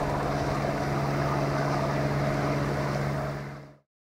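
A boat's engine running steadily with a low, even hum, over a hiss of wind noise; it all fades out about three and a half seconds in.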